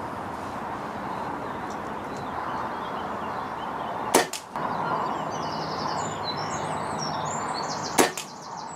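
Falcon Prairie pre-charged pneumatic air rifle firing .177 pellets: two sharp shots about four seconds apart, the first a quick double crack, over steady wind noise on the microphone. Birds chirp briefly between the shots.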